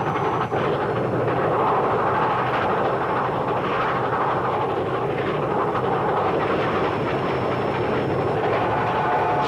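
Cartoon sound effect of a train running along: a steady, dense rush of rail noise with no whistle.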